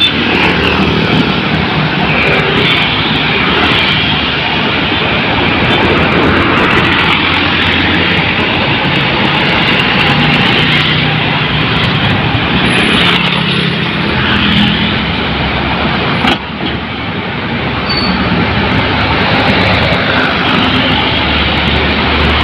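Heavy road traffic with large diesel vehicles such as buses and trucks passing, a steady loud wash of engine and tyre noise. A short click about sixteen seconds in.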